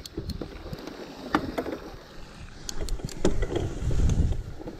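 Mountain bike rolling over a rough, wet grassy track: tyres swishing through long grass, with scattered knocks and rattles from the bike over the bumps and a heavier rumble of jolts from about three seconds in.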